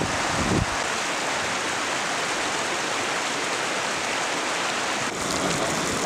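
A metal shovel scraping and shifting hot coals off a domed steel lid for a moment at the start, over a steady hiss. About five seconds in, crackling and sizzling from a beef patty frying on a hot stone beside a wood fire.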